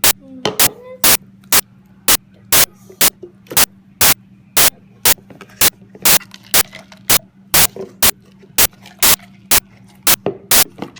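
Loud, evenly spaced electronic clicks, about two a second, over a steady low hum: crackling interference on the recording.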